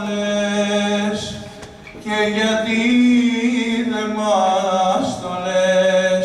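A man sings a slow, melismatic Greek song through a microphone: long held notes bent with ornamental turns. There is a brief breath about two seconds in, then a second long phrase.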